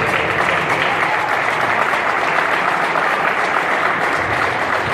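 Spectators clapping and cheering, a steady wash of applause.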